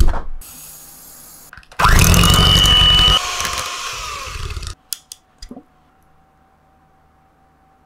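Electric hand mixer creaming butter in a bowl, its motor running with a high whine for about three seconds, loudest at first and then quieter. A thump comes just before it, and a few light clicks after it.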